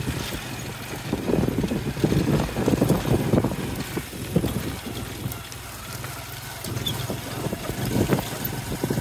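Tuk-tuk's motorcycle engine running on a rough dirt road, with irregular knocks and rattles as it goes over bumps.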